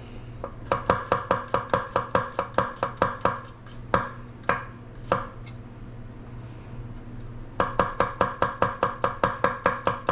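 Knife chopping garlic cloves on an end-grain wooden cutting board: quick runs of sharp knife strikes on the wood, about five a second, broken by a few single strikes and a pause of about two seconds in the middle before the rapid chopping starts again.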